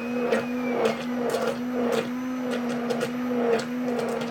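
Handheld immersion (stick) blender motor running at a steady hum, its blade churning melted oils and shea butter in a slow-cooker crock, with frequent sharp clicks throughout.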